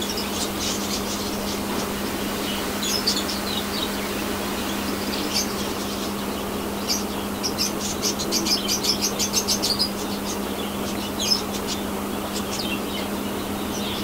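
Small caged parrots chirping in short high calls, with a rapid run of chirps about seven to ten seconds in. Under them runs the steady hum of a pedestal fan.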